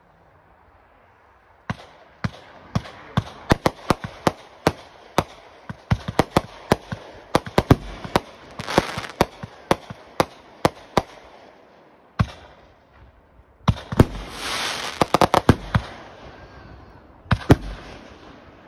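Aerial fireworks bursting overhead. A rapid string of sharp bangs begins about two seconds in, then comes a short lull, then a denser cluster of bangs and crackling, and a few more bangs near the end.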